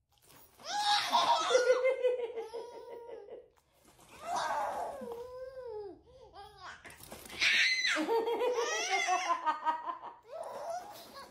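Baby girl's hearty belly laughter in long fits, about three bouts separated by brief pauses, with squealing rises and falls in pitch.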